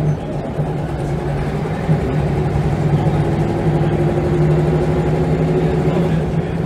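Scania L94UB single-deck bus's diesel engine running, heard from inside the saloon as a steady low drone, with a fainter higher whine over it through the middle.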